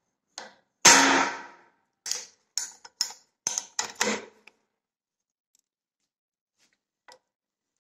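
Metal clanks and knocks from a spanner working a Mazda 6 belt tensioner held in a steel bench vise: one loud ringing clank about a second in, then a quick run of sharper clicks and knocks, then quiet but for one small tick near the end. The tensioner is being worked back and forth to free up its stiff pivot.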